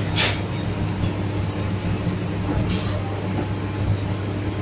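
Steady hum of commercial kitchen machinery, with two brief scuffing noises from chicken being handled at the flour breading station, one just after the start and one nearly three seconds in.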